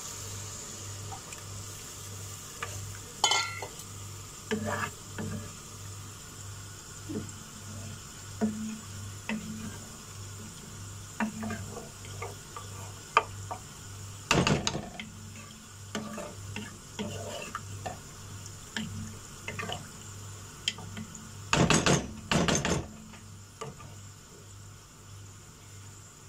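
A wooden spatula stirring stock in a stone-coated pot, with scattered light knocks against the pot, one louder clatter about halfway and a quick cluster of louder knocks near the end. Underneath is a faint sizzle of potatoes frying in oil in a wok.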